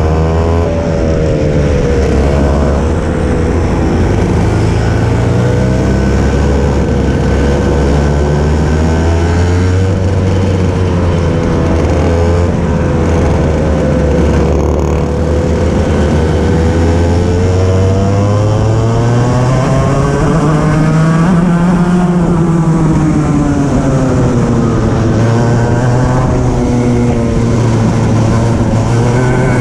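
Racing kart engine heard close up from the kart itself, its revs climbing and dropping every few seconds as it accelerates along the straights and slows for the corners, with other karts' engines running nearby.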